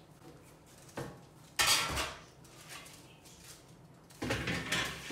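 Kitchenware being handled: a small click about a second in, then two short bursts of dishes and pans clattering, one near two seconds and one just after four seconds.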